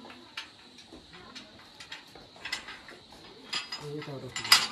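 Dishes and utensils clinking and knocking in scattered, irregular strikes, the loudest a sharp clack near the end.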